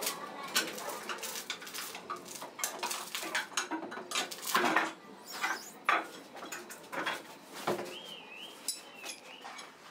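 Metal hand tools clinking and scraping against each other and the tire while a truck tire's sidewall is worked on: many quick, irregular clinks and knocks, loudest about halfway through.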